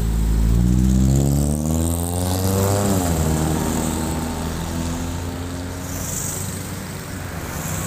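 Honda Accord 2.3-litre four-cylinder with a 4-2-1 header and a muffler without resonator, accelerating away. The exhaust note rises in pitch for about three seconds, drops sharply, then runs steadier as it fades.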